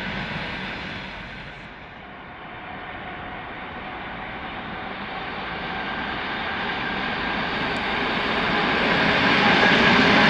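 A suburban electric multiple-unit train approaching and passing close by. Its running noise grows steadily louder from about two seconds in, after the sound of an earlier passing train fades away.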